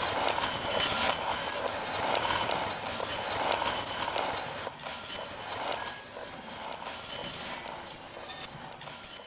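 Glass vase shattering, with its shards and the glass marbles inside clattering and clinking in a dense rattle of many small hits that slowly fades away.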